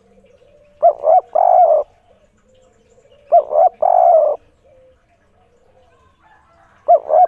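Spotted dove (tekukur) cooing its three-note 'kuk 3' call: two short coos and a longer third coo. The call comes twice, about two and a half seconds apart, and starts a third time near the end.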